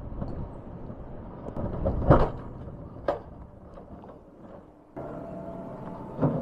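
Alpine coaster toboggan sled rolling along its steel rail track: a rumble of the wheels on the rails with a few sharp knocks. The rumble eases off, and a steady mechanical hum sets in about five seconds in.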